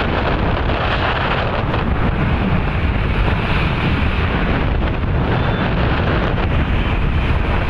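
Loud, steady wind buffeting the microphone of a phone filming from a moving two-wheeler, with road and traffic noise mixed in.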